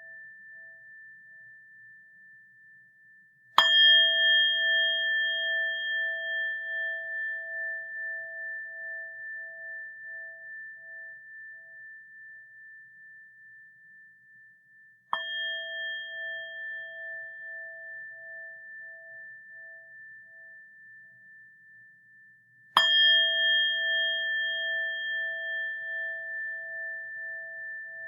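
Buddhist rin bowl bell struck three times, about 4, 15 and 23 seconds in, the middle strike softer. Each strike rings out in a long, slowly fading tone that wavers in a steady pulse as it decays.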